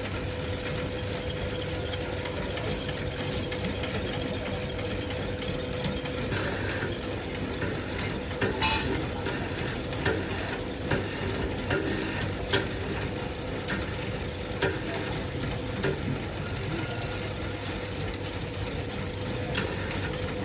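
3-in-1 satay-skewer making machine running, with a steady mechanical hum. A steady whine fades about six seconds in, and from then on irregular clicks and knocks come from the machine.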